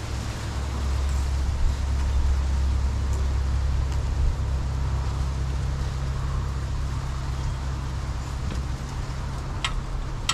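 A steady low rumble, with two sharp metal clinks near the end from hand tools on the engine.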